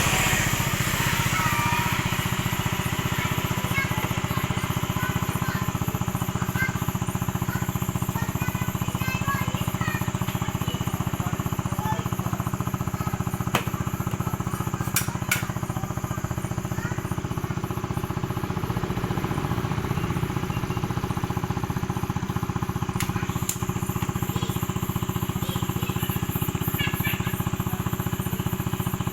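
Motorcycle engine running steadily with an even, fast-pulsing rumble. A couple of sharp clicks come about halfway through.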